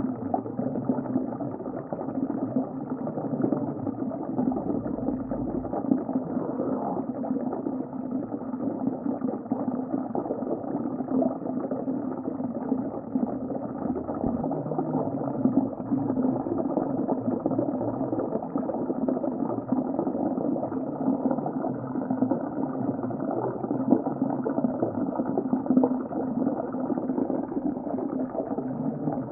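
Underwater ocean ambience: a steady, muffled low rumble that goes on without a break.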